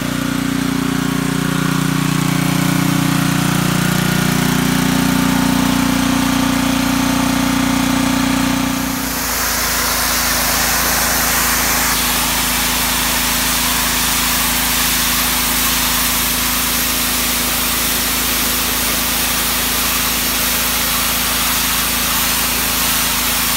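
Ryobi 2900 psi gas pressure washer's engine running steadily. About nine seconds in, the sound changes to the hiss of the high-pressure water jet spraying a concrete driveway, with the engine still running underneath.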